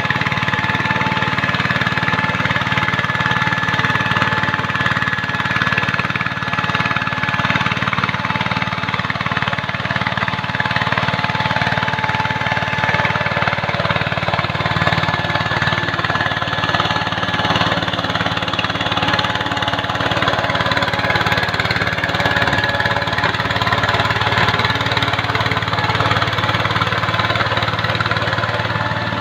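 Two-wheel walking tractor (power tiller) engine running steadily under load as it drags a leveling board through a flooded rice paddy on cage wheels. A thin steady whine rides over the engine.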